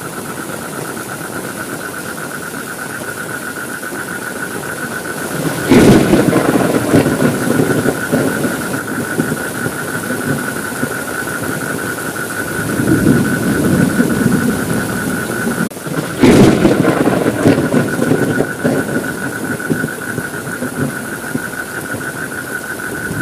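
Steady heavy rain with thunder: a sudden crack about six seconds in and another about sixteen seconds in, each rolling on as a rumble for a few seconds, with a softer rumble in between.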